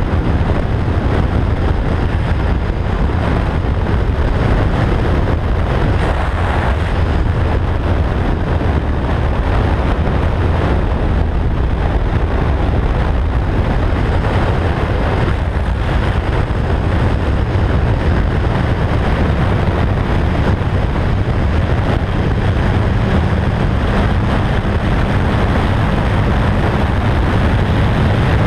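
Motorcycle cruising at highway speed: steady wind rush over the microphone with the engine's even drone beneath it.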